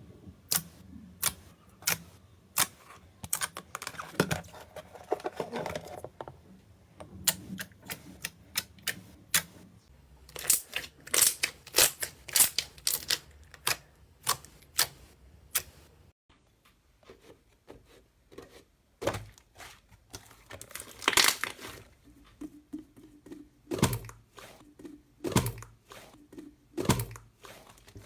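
Slime being pressed and squeezed by hand, giving a run of sharp, irregular clicks and pops several times a second, with a few heavier pops near the end.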